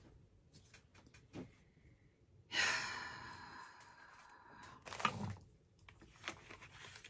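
A person's long sigh, starting suddenly about two and a half seconds in and trailing off over about two seconds, followed near five seconds by a short, lower sound.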